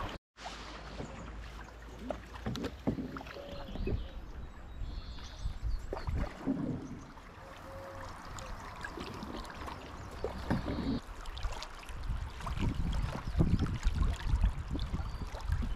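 Open canoe moving down a river: paddle strokes splashing and water lapping against the hull, with scattered knocks and a low rumble, the splashing louder toward the end.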